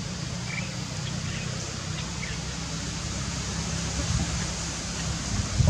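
Low rumble of wind buffeting the microphone, surging unevenly near the end, with a few faint high chirps in the first couple of seconds.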